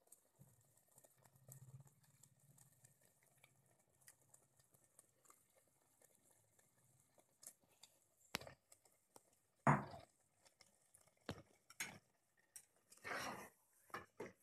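Masala and chicken pieces frying with a faint crackle in an aluminium pressure cooker pot, then a spoon knocking and scraping against the pot as the chicken is stirred in, with the loudest clack about ten seconds in.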